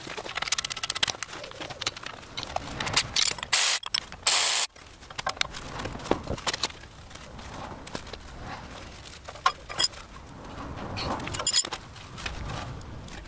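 Socket ratchet clicking as the brake caliper and hub bolts are undone on a VW Crafter's front wheel, with metal clinks of parts being handled. Two short, harsh rasps come about four seconds in.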